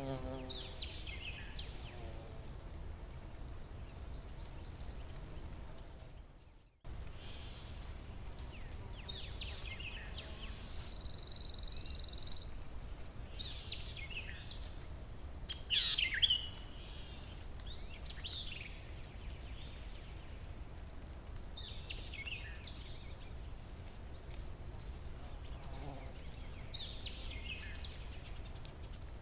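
Forest ambience: short bird calls and chirps come every few seconds over a steady low rumble. The loudest call is a little past halfway. The sound drops out briefly about six seconds in.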